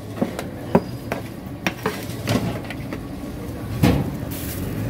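Metal dishes and serving utensils clinking and knocking together at irregular intervals, about seven sharp strikes, the loudest near the start and about four seconds in, over a steady low hum.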